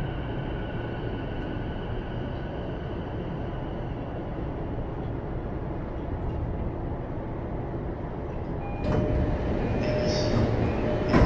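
Interior running noise of a JR East E233-1000 series electric train with Mitsubishi IGBT-VVVF control as it slows to a stop. A faint inverter whine in several tones fades away over the first few seconds, leaving a steady rumble. About nine seconds in, a louder sound carrying a steady tone comes in, and a sharp clunk sounds just before the end.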